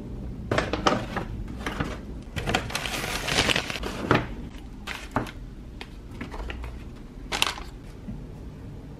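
Brown kraft paper shopping bag rustling and crinkling as items are pulled out of it: a run of short paper crackles, with the longest stretch of crinkling about three seconds in.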